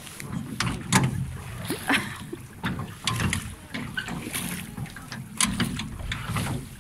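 A rowboat being rowed: the oars knock in their oarlocks and splash as they dip, in irregular strokes about a second apart.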